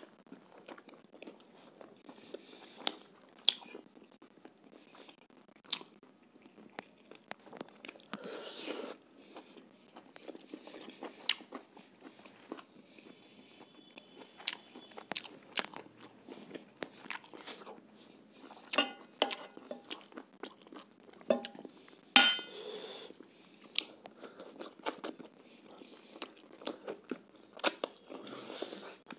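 A person chewing and biting chicken curry wrapped in roti, eaten by hand: irregular mouth clicks and crunches, with a louder crunch about eight and twenty-two seconds in.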